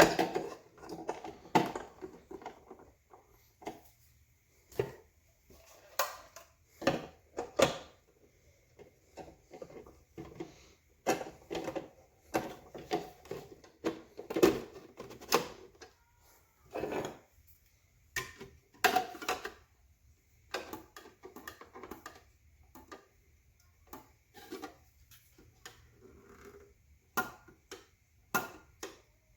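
Plastic juicer parts being handled and fitted together: irregular clicks, knocks and scraping as the slow juicer's pieces are seated and locked into place.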